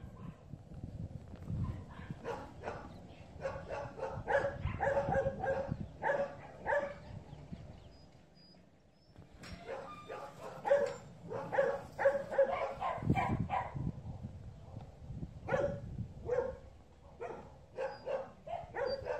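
A dog barking over and over in quick runs of short barks, with a brief lull about halfway through.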